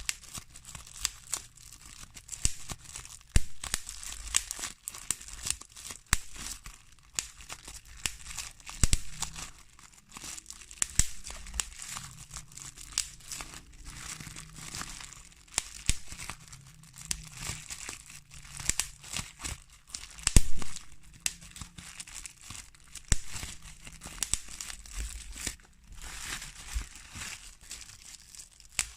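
Plastic bubble wrap being squeezed and popped by hand: irregular sharp pops, several a second, over the crinkling of the plastic sheet, with the loudest pops about two-thirds of the way through.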